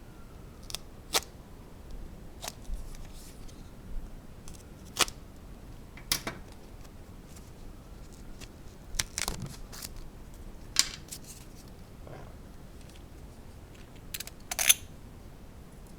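Coin packaging being pried open by hand: scattered sharp clicks and snaps with soft handling noise between them, the loudest snap near the end.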